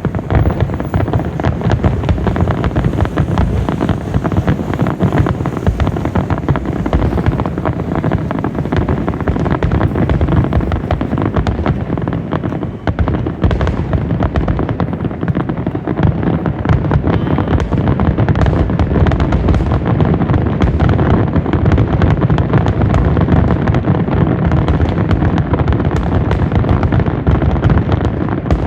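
Fireworks finale barrage: shells bursting in a dense, continuous rapid-fire volley with no pause between the bangs.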